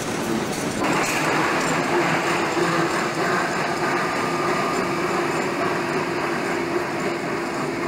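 ÖBB Class 1061 rod-drive electric shunting locomotive moving slowly close by, with steady running noise and a steady hum; the noise grows louder about a second in.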